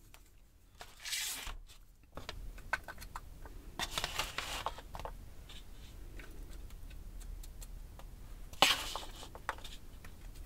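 A metal spoon scooping diced apple from a bowl and scraping it into a silicone baking tray: scattered small clicks and scrapes, with one louder scrape near the end.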